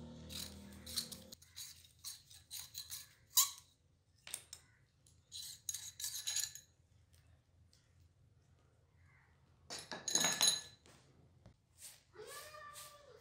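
Scattered metallic clinks and scrapes from a small rusty metal camera part being handled and scraped clean on a concrete workbench. A longer brushing scrape comes about ten seconds in, as a small brush sweeps away the rust debris.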